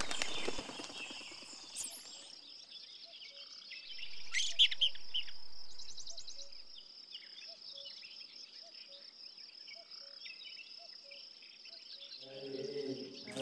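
Nature ambience: a steady high insect trill like crickets, with scattered bird chirps and a louder flurry of bird calls about four seconds in. Chanting voices begin near the end.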